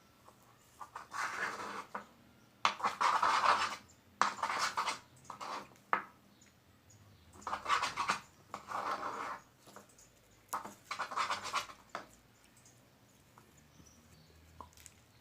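Freshly activated clear-glue slime being worked by hand, in about eight irregular noisy bursts of up to a second each. The slime is still lumpy and breaking apart because it has only just started to activate.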